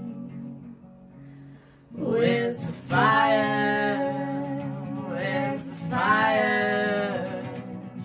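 Acoustic guitar playing, with singing coming in about two seconds in: long held notes that slide in pitch.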